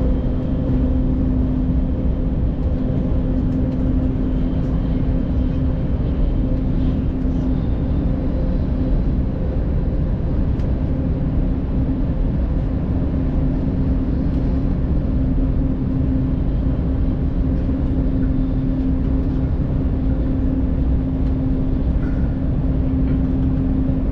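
Steady rumble and hum inside the cabin of a high-speed train while it runs, with a constant low tone over the running noise.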